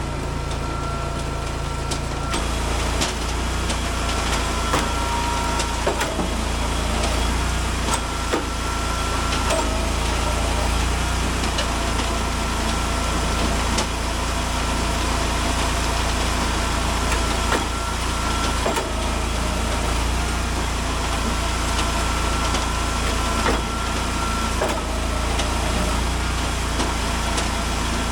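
Engine of the Eastonmade AXIS hydraulic wood splitter running steadily, with occasional knocks and cracks of wood being split and handled.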